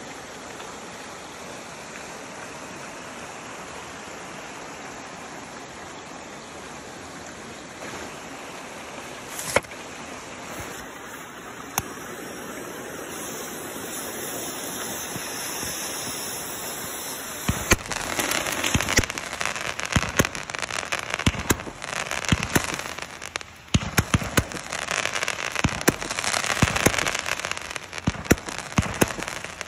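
A steady hiss with a couple of sharp clicks, then, about 18 seconds in, a 200-gram firework cake starts firing: a rapid, irregular string of launch pops and aerial bursts that runs on to the end.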